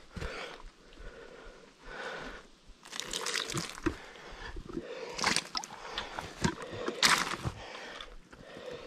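Irregular crunching and rustling of dry leaves and sticks underfoot, with sharper cracks about three, five and seven seconds in.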